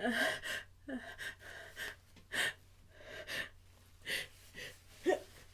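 A person's sneeze buildup: a string of short, shaky inhaled gasps and breaths, a few with a brief voiced catch, the loudest right at the start, as the sneeze builds without yet coming.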